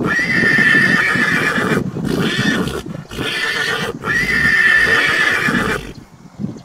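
Horse whinnying: one long whinny at the start and another about four seconds in, with shorter loud calls between them.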